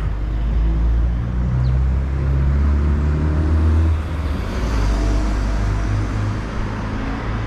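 Road traffic passing: cars driving by, with a steady low engine and tyre rumble that is strongest in the first half and eases about four seconds in.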